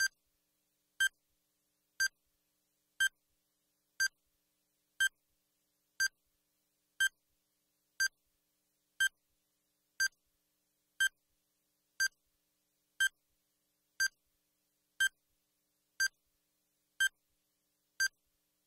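Countdown timer sound effect: a short beep once a second, evenly spaced, marking each second as the timer runs down.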